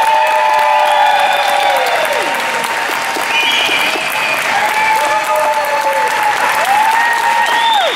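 Crowd clapping and whooping, with many overlapping high cheers that rise, hold and fall.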